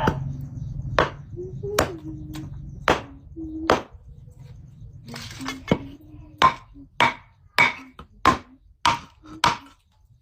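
Firewood being chopped: a blade striking wood in a series of sharp blows, about one a second at first, then quicker, about two a second, in the second half.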